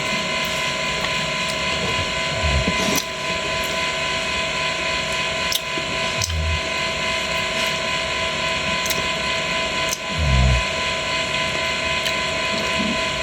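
Fish frying in hot oil: a steady sizzle with scattered sharp pops, over a constant hum.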